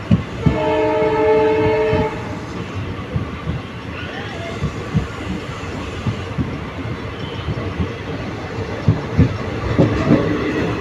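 Express train running at speed, heard from an open coach door: a steady rumble with wheels clattering over rail joints. About half a second in, the WDP4B diesel locomotive's horn sounds one chord for about a second and a half.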